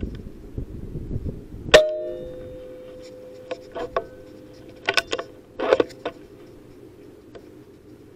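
An air rifle shot, a single sharp crack about two seconds in, followed by a metallic clang that rings on for about three seconds. Then a quick series of sharp clicks and clacks from the rifle's action being worked.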